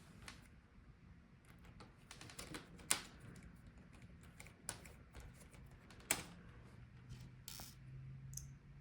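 Scattered light clicks and taps of metal laptop hinges and parts being handled and fitted into a plastic laptop back cover, with two sharper clicks about three and six seconds in.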